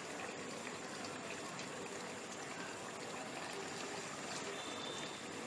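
Spiced goat meat sizzling and bubbling in oil in a kadai, a steady soft hiss with faint crackles, as the masala is fried down until its water cooks off.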